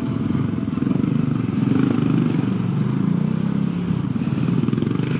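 Bajaj Dominar 400's single-cylinder engine running steadily as the motorcycle crawls through stop-and-go traffic.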